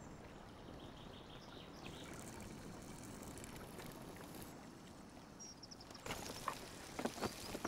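Faint riverside ambience: a low steady wash like running water, with a few short bird chirps about a second in and again past the middle. Several light clicks and knocks come in near the end.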